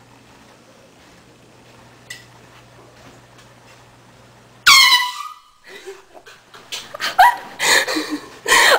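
A small handheld air horn gives one loud blast about five seconds in, lasting about a second. It is followed by a few seconds of loud, irregular noises.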